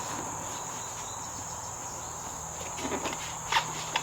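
Steady high-pitched insect trilling as a continuous background, with a couple of light clicks or knocks near the end.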